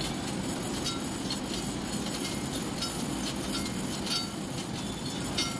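Chain pulley block's hand chain clinking and rattling as the actuator casing is slowly lowered: scattered metallic clinks over steady industrial background noise.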